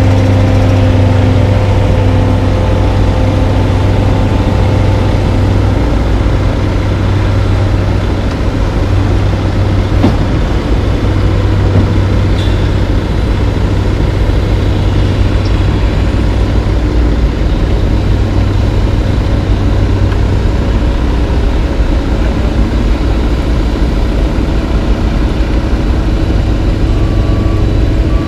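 Heavy diesel construction machinery running together, an asphalt paver, a roller compactor and a dump truck, making a loud, steady low rumble. A backup alarm starts beeping near the end.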